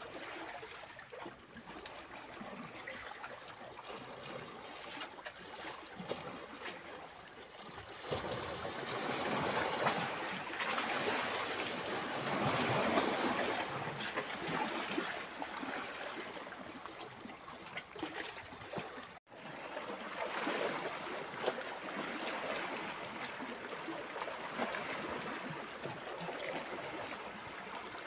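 Small sea waves washing and splashing against shoreline rocks, a steady watery hiss that swells louder for several seconds in the middle. The sound breaks off for an instant about two-thirds of the way through.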